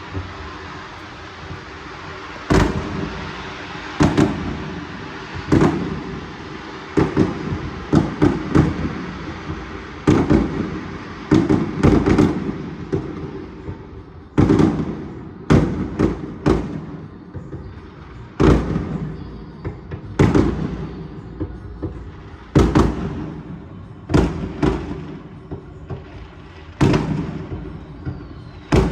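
Fireworks going off one after another, a sharp bang every one to two seconds, each trailing off in a short echo.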